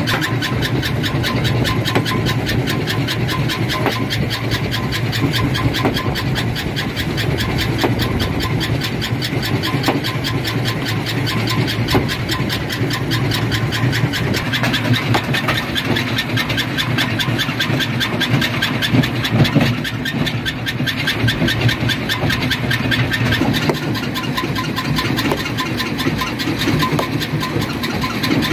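Jaw-type rock crusher running: a steady machinery drone with a rapid, even clatter, with no pause or change.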